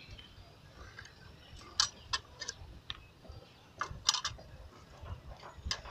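Sharp metallic ticks and clicks of a hand rebar-bending tool working a steel bar against the nails of a wooden bending jig while a stirrup is being bent. A handful of ticks come in two clusters, about two and four seconds in, with one more near the end.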